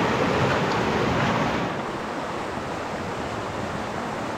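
Steady rush of fast-flowing river water, a little quieter from about a second and a half in.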